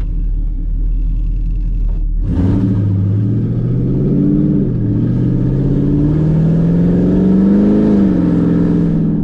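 Chevrolet Camaro SS V8 with exhaust cutouts accelerating on the road: a steady low drone, then about two seconds in the engine opens up and climbs in pitch over several seconds, with a brief dip midway, before easing off near the end.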